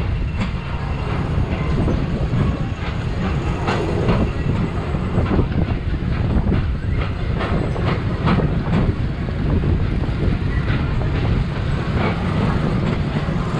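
Tomorrowland Transit Authority PeopleMover ride car rolling along its track: a steady low rumble with scattered clicks and knocks.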